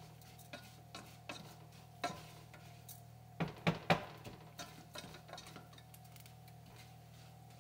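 A spoon scraping and knocking against a stainless steel saucepan as rice is stirred while it toasts, with a cluster of sharper knocks about three and a half seconds in. A steady low hum runs underneath.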